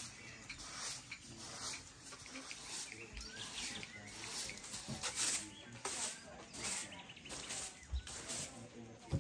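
Short-handled straw hand broom sweeping a rug on wooden boards, brisk swishing strokes a little over one a second, with a soft knock near the end.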